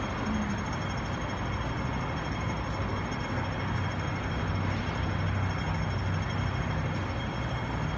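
Steady low mechanical hum of machinery running, over a constant hiss, with a few faint high steady tones. It stays even throughout, with no starts or stops.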